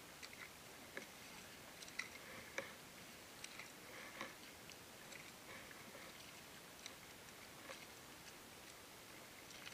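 Faint water sounds from a kayak moving on a river: scattered small drips and clicks against the hull over a low steady hiss, a little louder around two to three seconds in.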